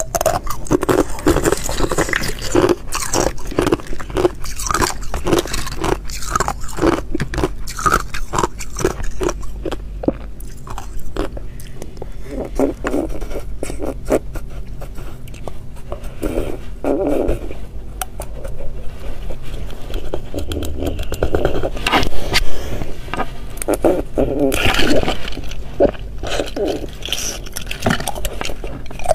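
Thin sheets of ice being bitten and chewed, a dense run of sharp crunches and crackles, with thin ice also cracked and snapped apart by hand. The loudest crunches come about two-thirds and five-sixths of the way through.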